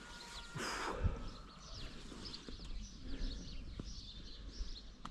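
Small birds chirping, many short high calls scattered throughout, with a brief rustling noise about a second in.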